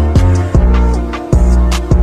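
Background music: a hip-hop style beat with a heavy kick drum about twice a second, hi-hat ticks and a sustained melody.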